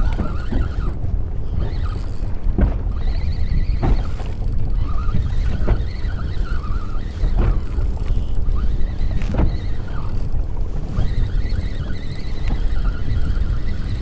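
Wind on the microphone and water slapping against a motorboat's hull, with irregular knocks every second or two.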